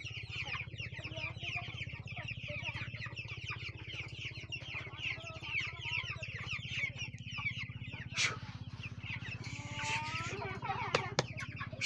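A large flock of chickens clucking and chirping continuously, many voices overlapping, over a steady low hum. A few sharp clicks come about eight and eleven seconds in.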